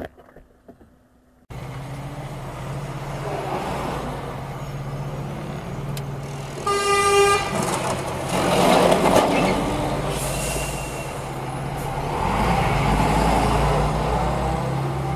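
Vehicle engine running with road and traffic noise, and one loud horn blast about seven seconds in.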